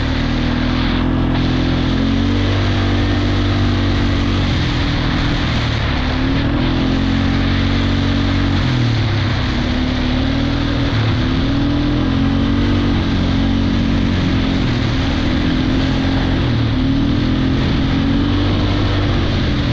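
ATV engine running under load at trail speed, its pitch rising and falling over and over as the throttle comes on and off. A steady rushing noise runs underneath.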